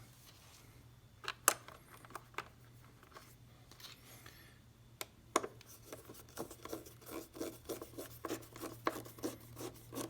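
Plastic cover of a Ninebot go-kart being handled and fitted back into place: a few sharp plastic clicks and knocks, then a run of quick small clicks and scrapes over the second half.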